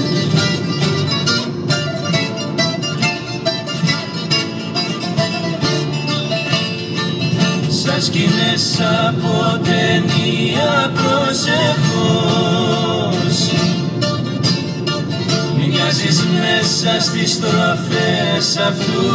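Music: a Greek song with plucked-string accompaniment and a singing voice.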